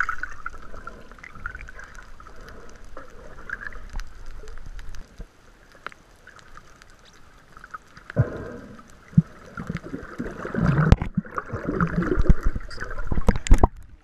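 Water sloshing and gurgling close to the microphone, with a quieter stretch in the middle and sharp knocks and thuds near the end.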